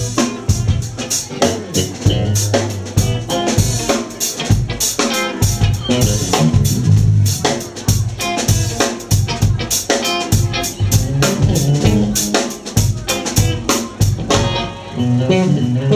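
Live rock band playing, with the drum kit prominent: bass drum, snare and rimshot hits under bass and guitar.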